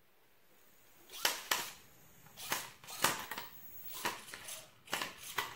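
Small fairyweight gyroscopic walking combat robot knocking and clattering on a concrete floor as it tilts its spinner and lurches over: about eight sharp knocks, several in quick pairs, starting about a second in.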